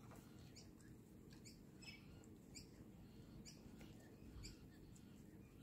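Near silence: quiet outdoor background with faint, short high chirps about once a second.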